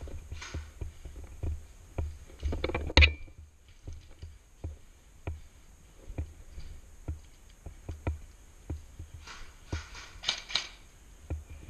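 Footsteps on a bare concrete floor, a short click about every two-thirds of a second, with rustling of gear and one sharp knock about three seconds in.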